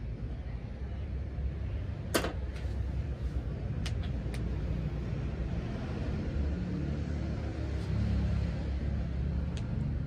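Steady low rumble, with a few sharp clicks; the loudest click comes about two seconds in.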